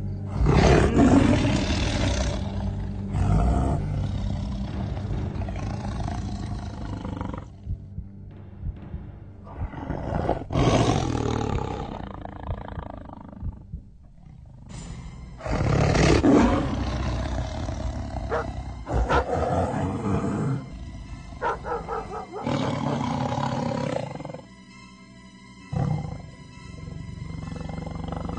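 A large animal's roars over dramatic film music, several long ones with quieter gaps between, the loudest about a second in and again about sixteen seconds in.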